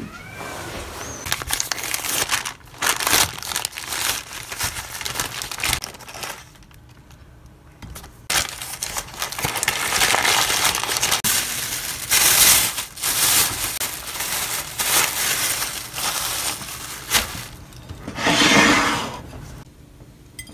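Paper sandwich wrapper being unwrapped and crinkled by hand, in many irregular rustling bursts. A short cat meow comes at the very start.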